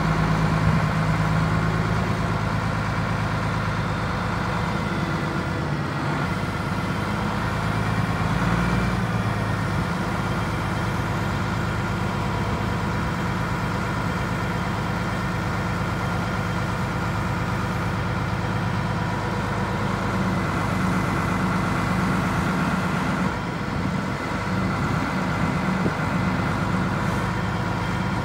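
LMV 12/D heavy forklift's diesel engine running steadily at low revs, its note shifting slightly twice.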